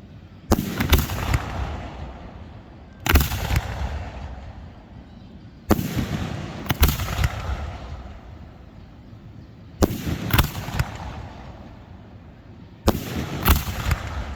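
Aerial fireworks going off: about six bursts a couple of seconds apart. Each burst is a sharp bang followed by a few quick cracks and a rumble that dies away.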